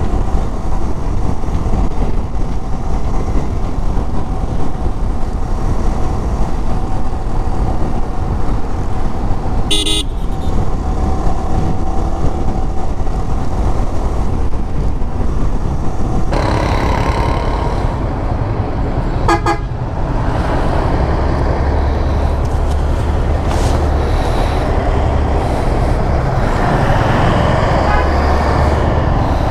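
Riding sound of a Yamaha R15 V3 motorcycle: its 155 cc single-cylinder engine running under a steady rush of wind on the microphone. A vehicle horn honks briefly about ten seconds in and again a little before twenty seconds, and the surrounding traffic noise grows busier in the second half.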